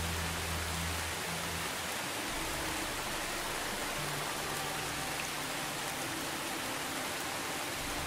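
Steady rain falling on leaves and grass, an even hiss.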